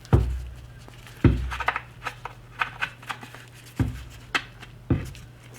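Four dull knocks with lighter clicks between them as the small metal front cap is handled and fitted onto the fore-end of a Mosin-Nagant rifle's wooden stock.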